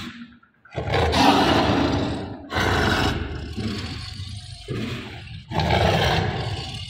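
Bengal tiger snarling at close range, three long snarls of a second or two each.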